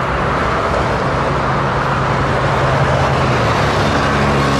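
Motorway traffic noise: a tanker lorry and cars passing at speed, a steady rush of tyres and wind with a low engine hum underneath.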